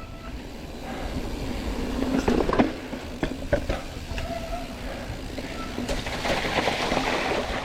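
Mountain bike riding down a dirt trail: tyres rolling over the ground with a steady rumble, and scattered knocks and rattles as the bike hits bumps, a cluster of them a few seconds in. Near the end the tyre noise turns hissier.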